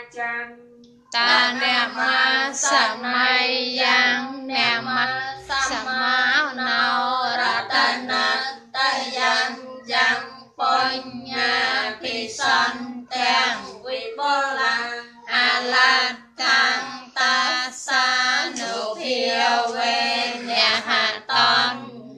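High-pitched voices singing a melodic Khmer Buddhist chant in short phrases of a second or two, with brief breaks between them.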